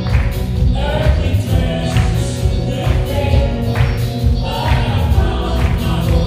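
Live gospel praise music: a choir singing over a band with heavy bass and a steady drum beat of about two strokes a second.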